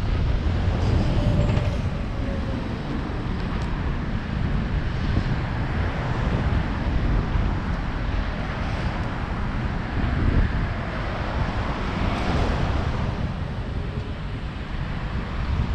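Wind buffeting a helmet-mounted action camera on a moving bicycle, over steady city traffic noise.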